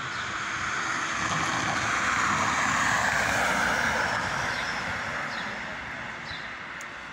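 A passing vehicle: its noise swells to a peak about three seconds in and then fades away, with birds chirping now and then.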